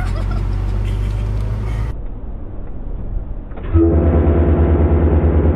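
Vehicle engine running with a steady low hum. After an abrupt cut, a louder steady low drone starts about two-thirds of the way through.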